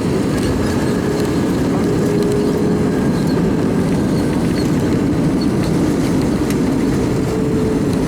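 Steady cabin noise of an Airbus A319-112 on the ground after landing: its CFM56 engines humming and the landing gear rumbling along the taxiway, with a faint steady tone and light ticks above it.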